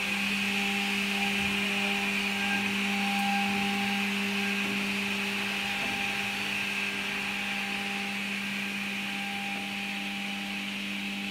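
MFZ506 six-function automatic edge banding machine running: a steady electric motor hum with an even hiss above it.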